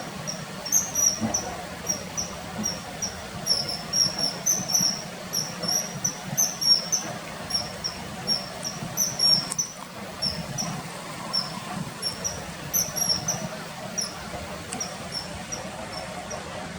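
Common kingfisher calls: short, high, thin chirps, repeated irregularly about two or three times a second, over a steady low background rush.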